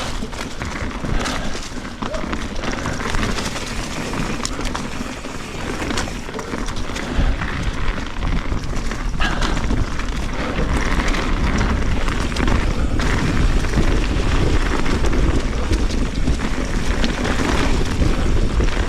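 Wind buffeting an action-camera microphone during a fast mountain-bike descent, with tyres rolling over dirt and rocks and the bike rattling over bumps. The low rumble of the wind grows heavier about seven seconds in.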